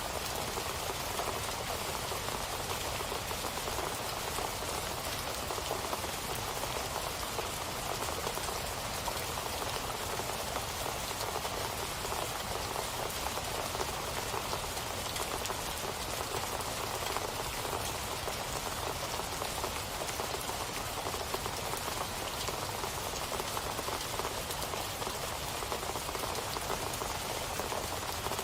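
Steady rain falling and pattering on a surface, an even hiss of many drops with no change in strength.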